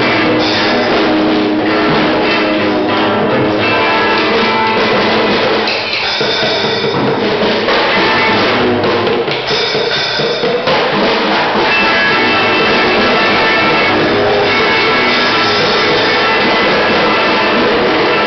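A child hitting the drums and cymbal of a small children's drum kit, over loud, continuous music.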